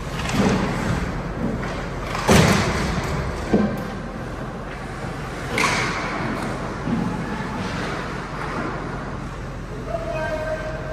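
Ice hockey play: a series of sharp thuds and knocks against the rink boards, the loudest about two seconds in, over a steady hum of rink noise.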